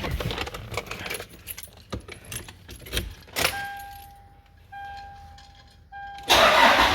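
Keys jangling and clicking, then a steady electronic beep sounding three times with short gaps. Near the end, a loud steady rushing noise with a low hum starts, like a car starting up or its fan coming on.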